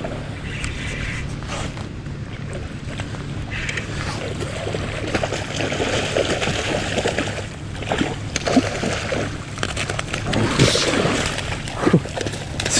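Sea water sloshing and splashing while a hooked pink salmon is played at the shore, over a steady low hum; the water noise grows louder about halfway through.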